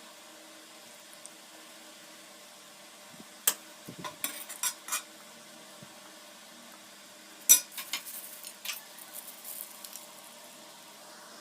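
Metal utensil clinking and scraping against cookware in two short bursts of sharp knocks, one about three and a half seconds in and a louder one about seven and a half seconds in, over a faint steady kitchen background.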